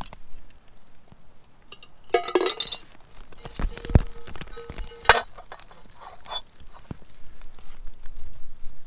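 Metal camping cookware clinking and knocking as a meal is set up: a ringing jangle about two seconds in, then a few sharp knocks near the middle.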